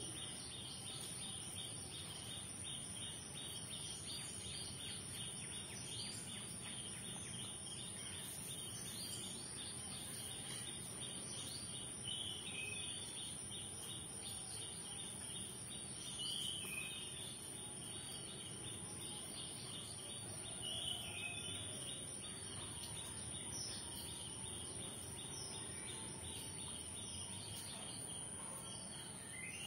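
Steady background ambience: a constant high-pitched whine and a fast, even pulsing, with three short falling chirps about twelve, sixteen and twenty-one seconds in.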